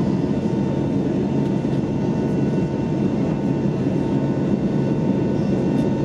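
Airbus A321neo's Pratt & Whitney PW1100G geared turbofan engines heard from inside the cabin shortly after takeoff: a steady, even roar with a faint steady whine over it.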